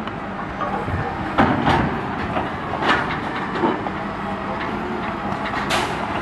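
Truck engine running steadily under a truck-mounted hydraulic grapple loader, with several clattering crashes and scrapes as the grapple drops roadside debris and brush into the steel dump body, the loudest about a second and a half in and another near the end.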